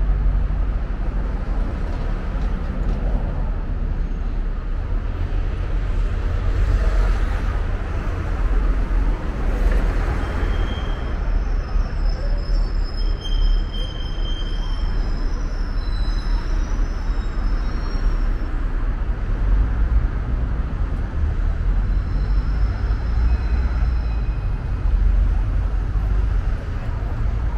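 Street traffic on a busy city avenue: a steady rumble of bus and car engines, swelling as vehicles pass about seven and ten seconds in. Brief thin high tones come and go in the middle.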